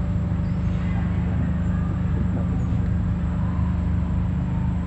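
Low, steady drone of an idling engine. A few faint, short high chirps sound over it.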